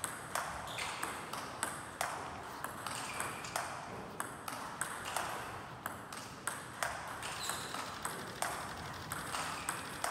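Table tennis rally: the ball clicking sharply off the bats and bouncing on the table, about two clicks a second, as forehand chops (backspin cut strokes) are played.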